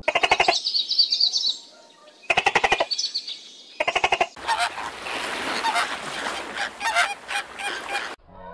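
Birds honking: three short, rapid rattling calls with a falling warble between them, then several seconds of a flock calling together, which stops abruptly near the end.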